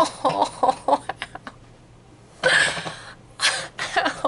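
A woman's laughter with short breathy bursts, and a louder cough-like burst about two and a half seconds in.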